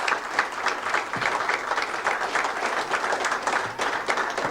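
Congregation applauding, a dense patter of many hands clapping that keeps going without a break.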